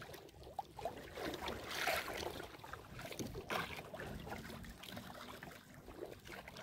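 Choppy water slapping and lapping against a small wooden outrigger boat, with the swish and trickle of a wet nylon gillnet being hauled in over the side. The sound comes in uneven swells, with small knocks against the hull.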